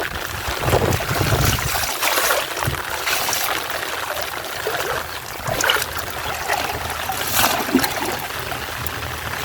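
Water trickling and splashing irregularly, with several short louder splashes.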